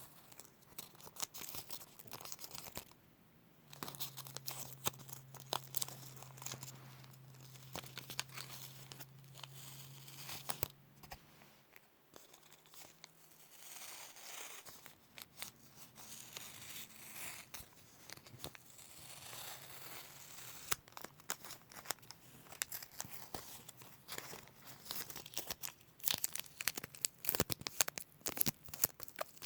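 Adhesive tape being peeled off repeatedly, a crackling, tearing sound with sharp sticky snaps as the adhesive lets go, growing denser and louder near the end. A faint low hum sits under it for several seconds early on.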